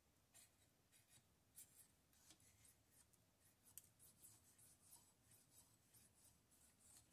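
Near silence, broken by faint, scattered light clicks and scrapes of a steel feeler gauge blade worked between a valve stem and its lifter during a valve clearance check on a Kohler Magnum M18 engine.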